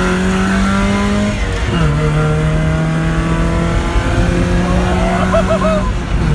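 1996 Mazda Miata's 1.8-litre four-cylinder engine, with its replacement bottom end, accelerating hard as heard from inside the cabin. The engine note rises, drops at an upshift about two seconds in, then climbs steadily again and drops at another shift near the end.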